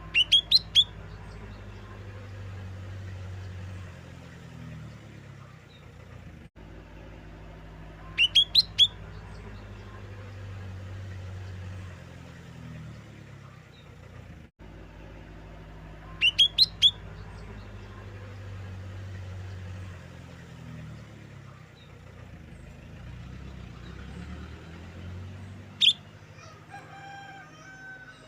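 Small leafbird (cucak daun) calling: short bursts of four or five sharp, high calls that repeat about every eight seconds, over a steady low hum. A run of clear whistled notes starts near the end.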